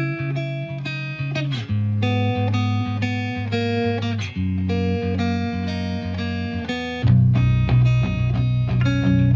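Background music: a plucked guitar playing a run of notes, joined about seven seconds in by a deeper bass part that makes it louder.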